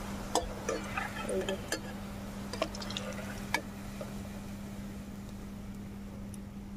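Perforated metal spoon clicking and scraping against an aluminium kadai as fried koptas are scooped out of hot mustard oil, over a faint sizzle of the oil. The clicks stop after about three and a half seconds, leaving a steady low hum.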